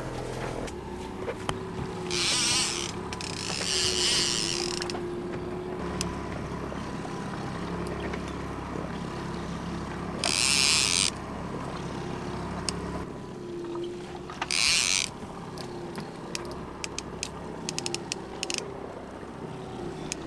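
Trolling reel being cranked, its mechanism clicking and ratcheting, as a hooked king salmon is reeled in to the boat. Under it a boat motor hums steadily. Several loud bursts of hiss, each about a second long, stand out over it, and a quick run of small clicks comes near the end.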